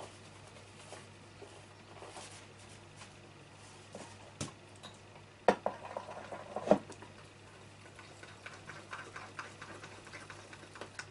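Spoon stirring thick powdered-sugar and lemon icing in a small glass bowl, with light, quick clinks and scrapes against the glass near the end. A few sharp knocks come around the middle.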